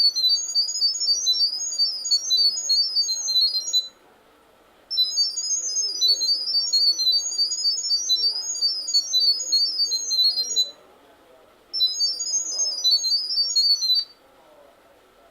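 Electronic ringtone of a Wi-Fi video doorbell: a fast, high-pitched beeping melody. It stops about four seconds in, plays again a second later for about six seconds, then plays a shorter third time that ends about a second before the end.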